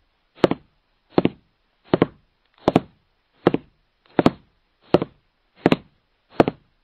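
Intro sound effect of evenly spaced double knocks, about one every three-quarters of a second, nine in all, with silence between them.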